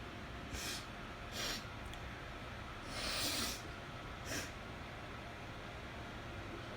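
A woman sniffing hard through her nose four times over about four seconds, the third sniff longer and loudest, her nose still tickling after sneezing.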